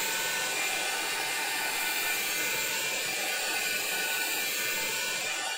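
Small handheld hair dryer running steadily, a constant rush of blown air with a thin, even motor whine, drying freshly varnished paper.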